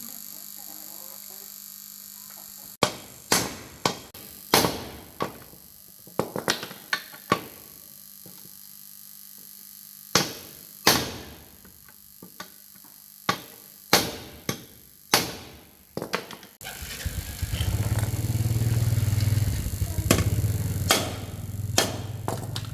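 Sharp metallic clinks and taps of tools against motorbike parts, a dozen or so spaced irregularly. About seventeen seconds in, a louder steady low rumble starts and runs on.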